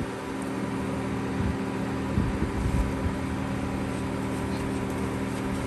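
A steady mechanical hum from a running motor, with an even hiss underneath.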